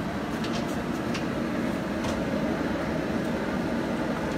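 REC TEC RT-B380 Bullseye pellet grill running on high, a steady rush of its fan and fire, with a few faint crackles from grease burning on the fire.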